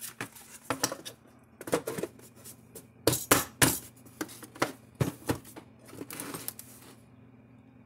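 Hard plastic case halves of a Gallagher M1000 fence charger being handled and fitted back together: an irregular run of sharp clicks and knocks, the loudest a few seconds in.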